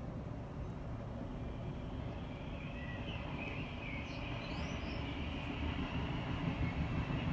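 A steady low outdoor rumble that grows slightly louder toward the end, with a few faint bird chirps in the middle.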